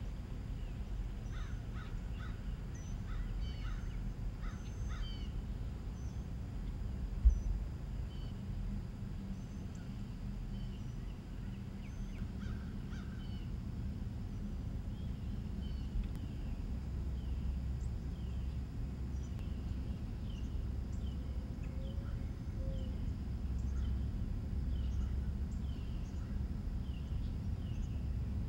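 Birds calling: scattered chirps at first, then a long run of short, evenly repeated falling chirps through the second half, over a steady low rumble. One sharp thump about seven seconds in.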